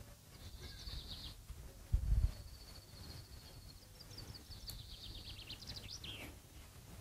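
A small bird singing in high chirps and quick trills, with a brief low thump about two seconds in, over a low steady background hum.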